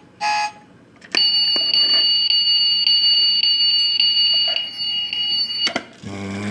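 A steady, high-pitched electronic beeper tone, like an alarm, sounding unbroken for about four and a half seconds. It starts with a click about a second in and cuts off suddenly with another click.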